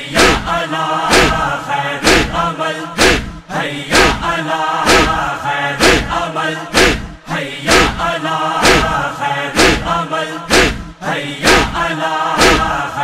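A group of men chanting a Muharram noha in unison, kept in time by sharp rhythmic chest-beating (matam), about one strike a second.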